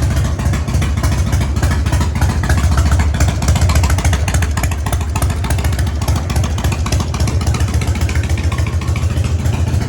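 Harley-Davidson Evolution (EVO) air-cooled V-twin motorcycle engine running at a fast, steady idle just after a cold-weather start, swelling slightly about three to four seconds in.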